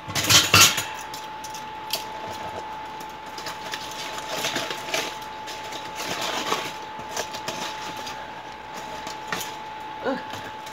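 Aluminum foil crinkling and crackling as it is torn open by hand over a disposable foil pan, in irregular bursts, loudest in the first second. A faint steady tone runs underneath.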